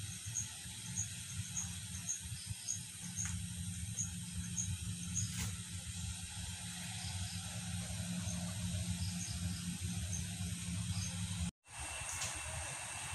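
Distant jet airliners taxiing: a steady hiss over a low rumble, with a high insect chirp repeating about twice a second through the first few seconds. The sound cuts out for a moment near the end.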